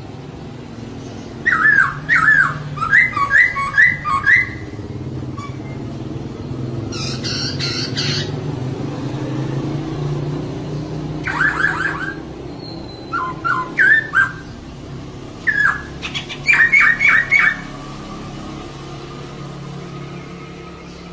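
Female poksay (laughingthrush) calling in several bursts of quickly repeated notes, each burst a second or two long with short gaps between. A steady low hum runs underneath.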